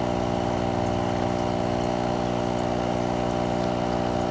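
Steady mechanical hum of a small motor, an even drone made of several steady tones that does not change.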